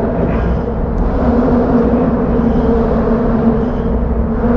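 Road traffic on the bridge deck overhead: a steady low rumble with a constant droning hum, heard from beneath the bridge.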